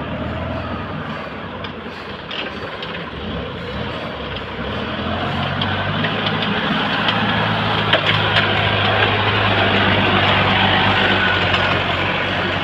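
Sawmill machinery running steadily, an engine drone with dense noise over it, growing louder about five seconds in.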